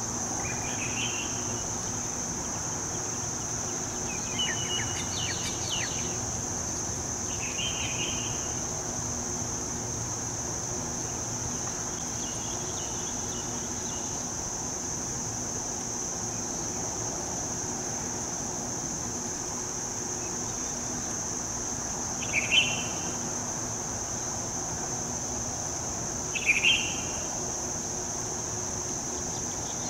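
Steady, high-pitched insect buzz, like crickets, with a few short chirps now and then, the loudest two in the later part.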